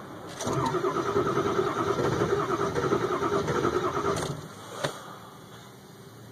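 A 2002 Ford F350's 7.3 L Powerstroke V8 diesel cranking on the starter for about four seconds on a cold start without catching, followed by a single click. This is the hard cold start the owner is asking about. He wonders whether a weak battery or bad glow plugs is to blame.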